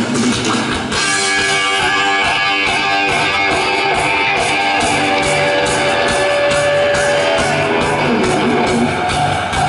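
Heavy metal band playing live: electric guitar over drums and bass, with one long held guitar note in the middle.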